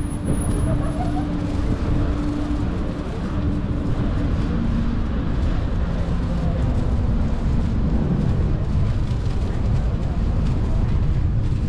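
Busy street ambience: a steady low rumble of road traffic with voices of passers-by mixed in.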